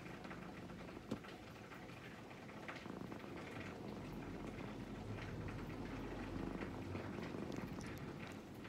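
Orange-and-white cat purring steadily right at the microphone, with one short click about a second in.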